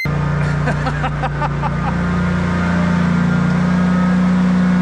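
Engine running steadily, its pitch rising slightly about two seconds in.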